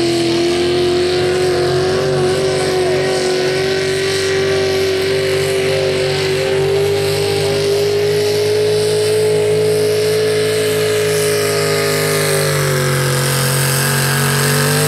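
Pro Stock 4x4 pulling truck's engine held at high revs under load through a pull, loud and steady with its pitch slowly creeping upward.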